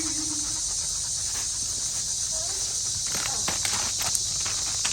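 Steady high-pitched chorus of insects, with a few short clicks or rustles in the second half.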